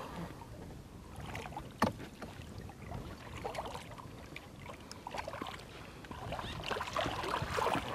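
Water splashing and lapping against the boat's side as a large tarpon is held by its jaw in the water for release, with one sharp knock about two seconds in and livelier splashing near the end.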